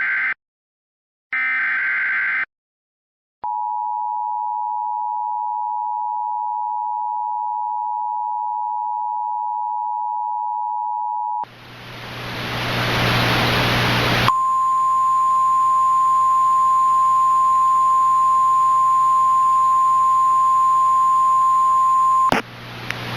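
Emergency Alert System tones: the last two short buzzing bursts of the SAME data header, then the two-tone EAS attention signal held for about eight seconds. Radio static then swells up, and the single steady weather-radio alert tone sounds over it for about eight seconds before cutting off and leaving the static.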